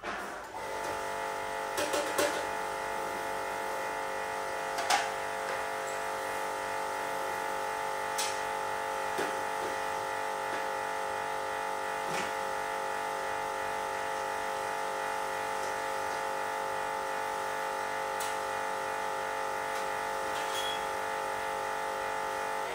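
Induction cooker running: a steady electrical buzz made of many pitched tones, holding an even level throughout, with a few light clicks over it. It cuts off suddenly at the end.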